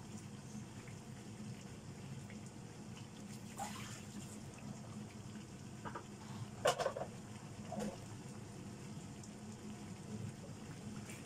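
Chicken and potato curry simmering in a frying pan: a steady bubbling hiss over a low hum, with a few short pops, the loudest just past halfway.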